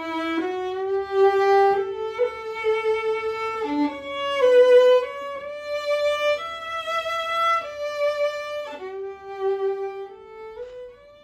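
Background music: a slow solo melody on a bowed string instrument, long held notes gliding from one pitch to the next, fading out near the end.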